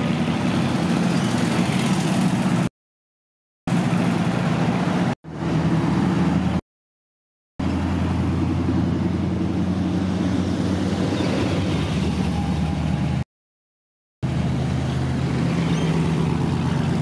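Hot rods and old cars driving past one after another, their engines running with a low, steady note. The sound breaks off abruptly into several short silent gaps, about three, six and thirteen seconds in.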